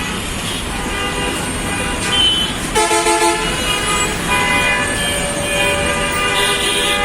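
Horns of buses and other vehicles honking over one another in a jammed street, over the rumble of idling traffic. About three seconds in, a louder horn sounds in a few short toots.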